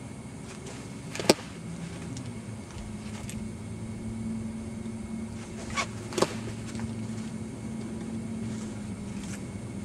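Sharp smacks of baseballs hitting a catcher's mitt and gear during drills: one loud smack about a second in, then two softer ones in quick succession a few seconds later. A steady low hum runs underneath.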